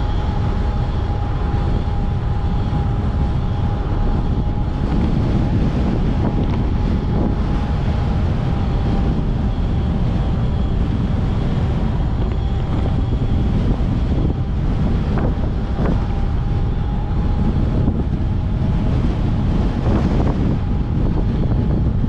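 Wind rushing over the microphone while riding a 3000 W electric bike, over a steady high whine from its electric motor. A few light knocks come in the second half.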